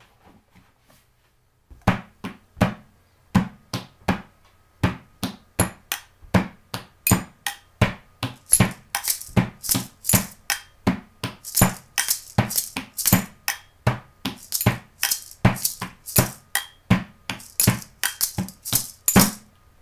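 Several hand-percussion parts playing together in a steady rhythm: a wrapping-paper box top struck by hand as the medium drum, a maraca shaken as the shekere part, and a double bell. The strikes start about two seconds in, and the maraca's shakes become loud from about eight seconds on.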